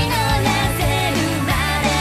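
Background pop song playing, a melodic line over a steady beat.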